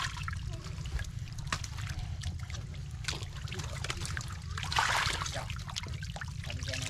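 Muddy water sloshing and splashing as hands and metal bowls scoop through a shallow, half-drained pond bed, with a louder splash about five seconds in. A steady low rumble runs underneath.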